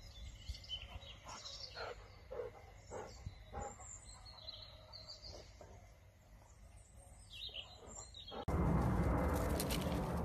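Small birds chirping faintly in a garden, with a few soft knocks and rustles. About eight and a half seconds in, it switches abruptly to a much louder, steady rushing noise.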